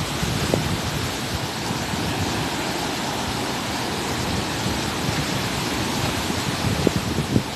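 Surf breaking on the beach in a steady, even rush of sea noise, the waves running high in the rainy season.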